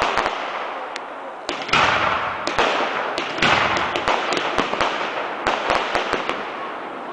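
Aerial fireworks going off in quick succession: a string of sharp bangs and reports, the loudest burst about a second and a half in and another about three and a half seconds in, each followed by a dense hissing crackle.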